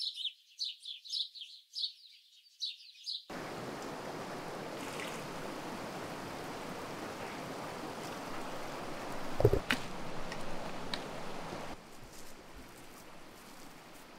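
Small bird chirping in quick repeated notes for about three seconds, then a shallow rocky stream running steadily. About nine seconds in there is a loud splash of water from hands at the face, and the stream sound drops fainter near the end.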